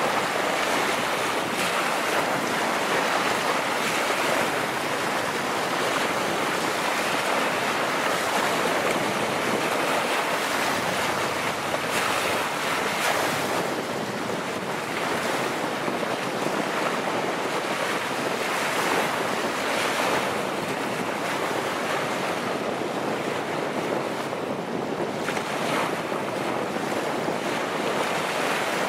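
Choppy open water splashing and lapping in a steady wind: an even rushing noise that swells and eases now and then.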